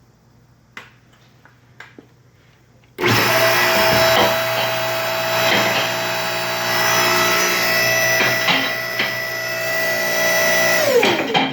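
Electric motor and hydraulic pump of a Mohawk two-post car lift starting up suddenly after a few light clicks, running with a steady whine for several seconds, then shutting off with a falling pitch as it spins down. The motor starts and runs normally with its newly repaired start switch.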